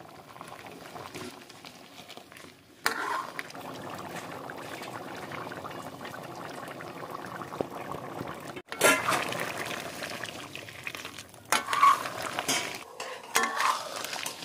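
Snail curry boiling and bubbling in a large aluminium wok, with a metal ladle stirring it and clinking against the pan. The bubbling comes in sharply about three seconds in and breaks off briefly after about nine seconds. Louder ladle clinks and scrapes follow near the end.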